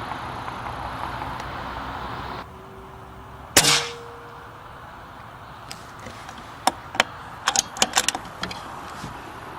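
A single shot from an Air Arms S410 pre-charged pneumatic air rifle, a sharp crack with a short tail about three and a half seconds in. Several seconds later comes a quick run of sharp clicks, about eight in two and a half seconds.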